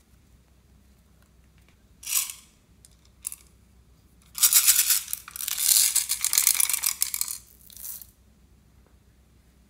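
Pink plastic bear toy with a small mechanism clicking rapidly for about three seconds, after a short rustle and a single click.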